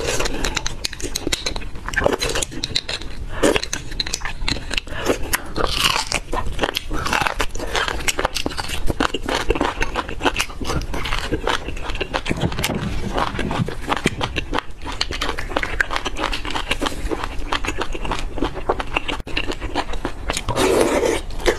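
Close-miked eating sounds: biting and chewing of roasted beef bone marrow, with many quick wet mouth clicks and smacks and short sucking slurps as marrow is drawn from the bone.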